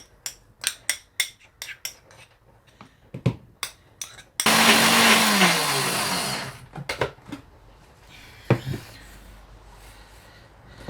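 Sharp clicks and knocks from the mixer jar being handled. About four seconds in, an electric mixer grinder (mixie) runs in one short pulse of about two seconds, then its motor whine falls as it spins down. A few more knocks follow. The pulse mixes soaked Maldive fish into a coarse ground coconut-chilli sambal.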